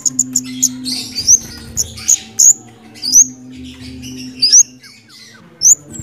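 Orange-headed thrush singing: a string of short, sharp, high whistled notes, each sweeping upward, about one a second, with scratchy chatter between them. A steady low hum runs beneath.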